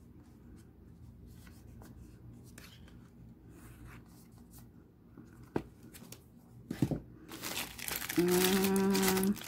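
Sheets of cardstock handled with small taps and rustles, then a cellophane-wrapped pack of note cards picked up and crinkling loudly from about seven seconds in, with a drawn-out hum of a voice near the end.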